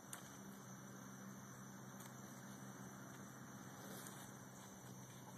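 Near silence: a faint steady background hum and hiss, with one faint click just after the start.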